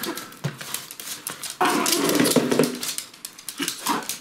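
Pomeranian dogs growling and yipping in rough play, with a longer growl about one and a half seconds in and short yips near the end, over many small clicks and knocks.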